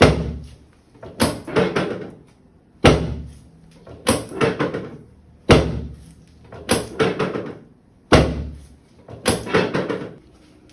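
Chiropractic adjustment on a treatment table: four sharp thuds, about two and a half seconds apart, each followed a second or so later by a quick run of smaller knocks.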